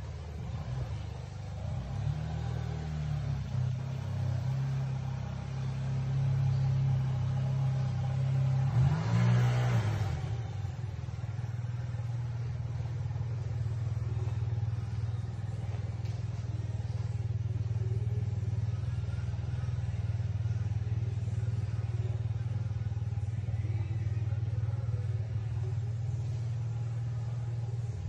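An engine idling steadily with a low, even hum. It is revved briefly about nine seconds in and then settles back to idle.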